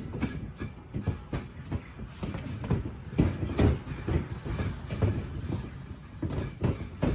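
Boxing gloves landing in a sparring exchange: dull thuds of punches hitting guards and bodies, coming irregularly, several a second.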